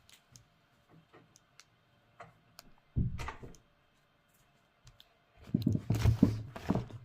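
Scattered small clicks and taps from handling a package, with a short rustle of packaging about three seconds in and a longer stretch of rustling and handling noise near the end.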